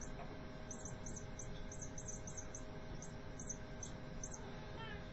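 Faint, high-pitched chirping: short chirps, often in pairs, several a second, over a faint steady hum.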